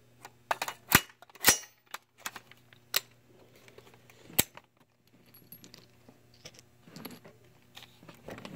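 PSA 9mm AR pistol firing single shots in an indoor range: four sharp reports, two about half a second apart near the start and two more spread over the next few seconds, with fainter clicks between them.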